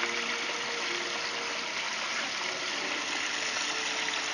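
A turkey deep-frying in a large pot of hot cottonseed oil, the oil bubbling with a steady hiss.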